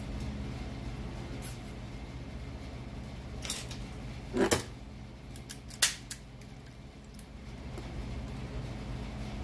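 Several sharp snips and clicks of hand cutters trimming wire ends, the loudest about six seconds in. A steady low hum runs underneath.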